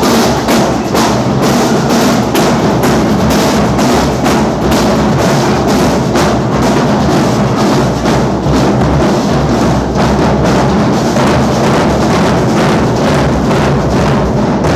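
Marching band drumline playing a cadence: bass drums and snare drums beating a steady, driving rhythm.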